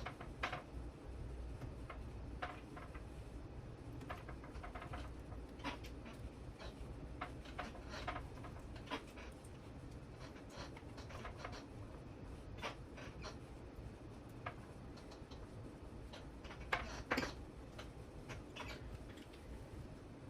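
Scattered light clicks and taps of small parts being handled while a servo is taken off and its cable threaded through an RC helicopter frame, over a low steady hum. A couple of sharper clicks come about three seconds before the end.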